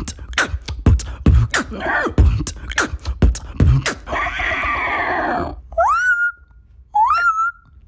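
A beatboxer's mouth imitation of a horse: a fast run of sharp percussive clicks and beats, then a long breathy rasp. About six seconds in it switches to a parrot imitation, two rising whistled calls that level off.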